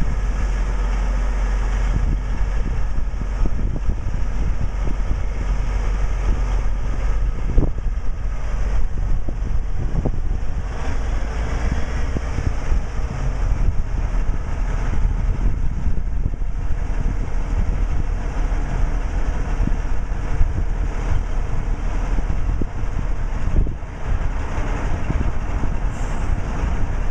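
Cummins NTC-400 turbo-diesel inline-six of an M917 military dump truck running steadily while the raised dump bed is lowered.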